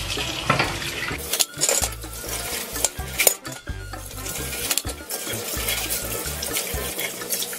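Dishes clinking and knocking against each other and the stainless steel sink as they are washed by hand, with the tap running.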